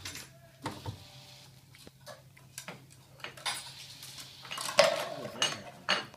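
Irregular metallic clicks and clanks from a Tetrix aluminium robot on mecanum wheels as it drives slowly down off a ramp, the loudest clank about three-quarters of the way in.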